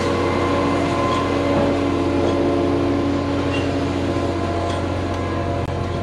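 Diesel engine of a Putzmeister 40Z concrete boom pump truck running at a steady speed, a constant hum with several held tones.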